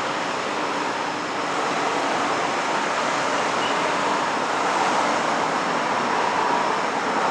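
Road traffic noise: a steady rush of tyres and engines from passing vehicles, swelling slightly a couple of times.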